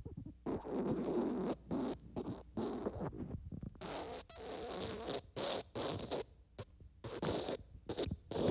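Wet fart sound effect: a long, sputtering run of noisy bursts broken by brief gaps, ending in a few shorter separate spurts.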